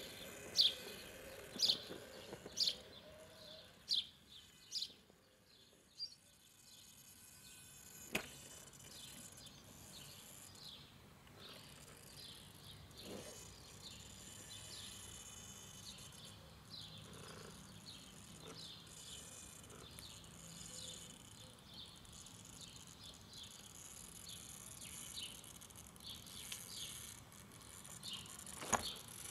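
Small birds chirping outdoors: a run of short, loud, falling chirps about once a second for the first five seconds, then fainter scattered twittering. A single sharp click about eight seconds in.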